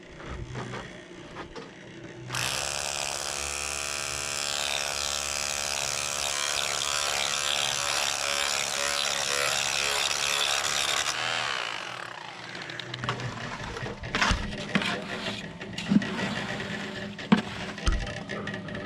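A power tool's motor runs steadily at an even pitch for about nine seconds, then stops, followed by scattered knocks and scrapes.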